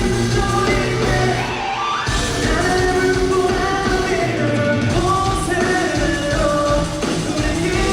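A rock band playing live, with sung vocals over electric guitars and drums, recorded from the audience.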